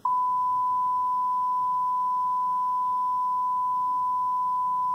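Pure 1 kHz sine-wave test tone played back from the computer through its speakers. It starts suddenly and holds one unchanging pitch and loudness, a steady-state signal.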